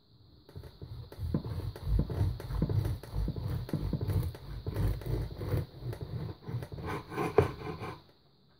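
Serrated bread knife sawing back and forth through the crust of a spelt wholemeal loaf on a wooden board, stroke after stroke, stopping about eight seconds in as the slice comes away. The crust is crisp enough to be heard under the blade.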